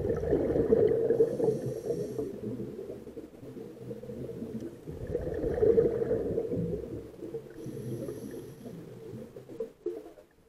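A scuba diver breathing through a regulator underwater: two breaths about five seconds apart, each a loud rush of bubbling exhaled air with a brief high hiss in it.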